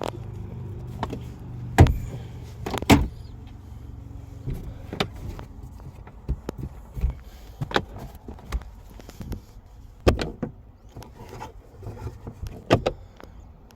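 Sharp knocks and clicks of someone handling the inside of a 2016 Mitsubishi Outlander's cabin, checking controls and trim, the loudest about two and three seconds in. A low steady hum dies away in the first couple of seconds.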